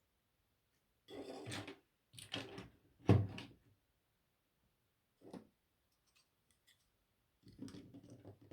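Plastic Lego pieces being handled and fitted together: a handful of short clattering and clicking bursts, the loudest about three seconds in.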